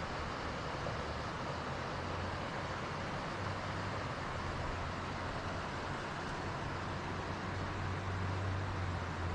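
Steady rush of a mountain stream's water flowing over rocks, an even hiss with a low rumble underneath.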